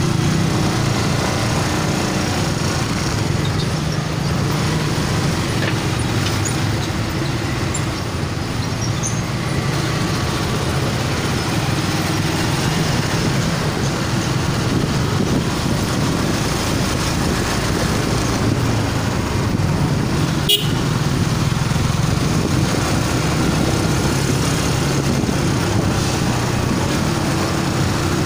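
Motorcycle engine running steadily at low road speed, with surrounding traffic and road noise. One sharp click about twenty seconds in.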